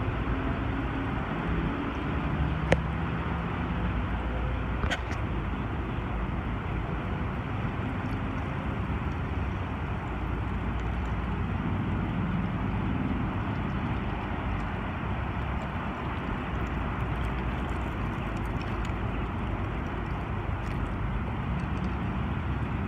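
Steady outdoor background noise, an even rush with a faint low hum at times. Two light clicks come within the first five seconds.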